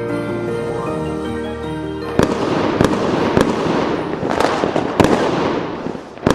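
Music ends about two seconds in and gives way to fireworks: dense crackling with about six sharp bangs spaced roughly half a second to a second apart.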